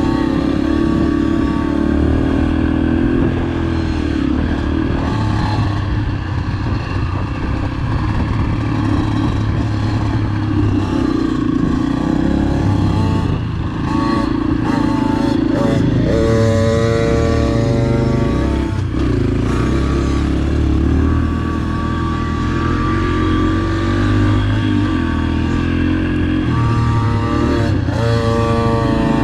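Dirt bike engine running and revving continuously on a motocross track, its pitch rising and falling with the throttle. The engine note comes through clearer twice, about two-thirds of the way in and again near the end.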